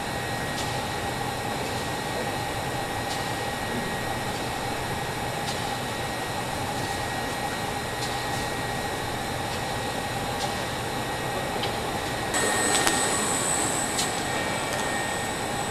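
Steady hum and rushing air of a large aircraft hangar's machinery and ventilation, with a faint steady whine and a few faint clicks. About twelve seconds in it steps up a little louder, with a brighter hiss.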